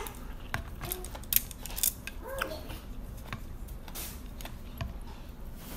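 Eating noodles: scattered sharp clicks and taps of chopsticks and a ceramic spoon in the bowl, mixed with mouth sounds of chewing, two louder taps about a second and a half in.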